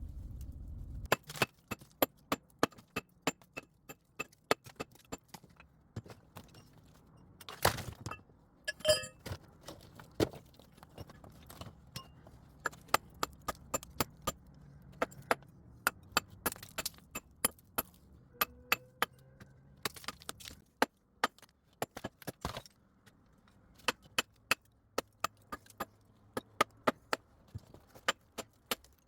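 Repeated sharp knocks of hard objects striking one another, irregular, about one to three a second, with a louder cluster of hits about eight seconds in. A low rumble cuts off about a second in.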